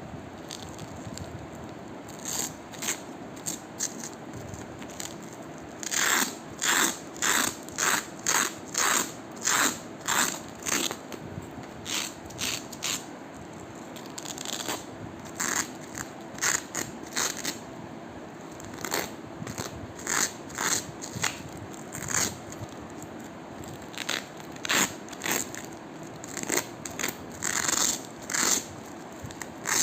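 Velcro hook-and-loop fastener being ripped apart in short, crunchy rasps. After a quieter start they come about two a second for several seconds, then at a looser, irregular pace.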